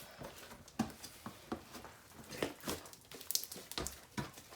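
Slime being handled and poured: quiet, irregular wet squelches and small pops.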